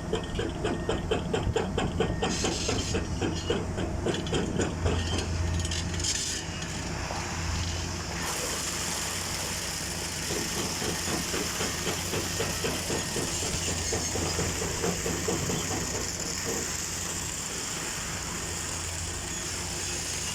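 Concrete mixer truck running, its engine humming steadily, with a fast rhythmic clatter for the first several seconds that gives way to a steady hiss.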